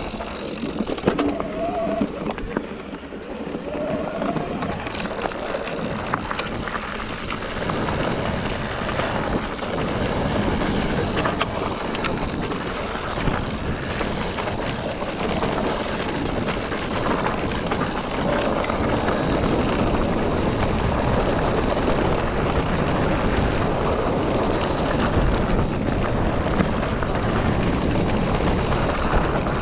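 Santa Cruz electric mountain bike ridden over a rough dirt trail: steady tyre and wind noise with dense rattling and knocks from the bike over the ground.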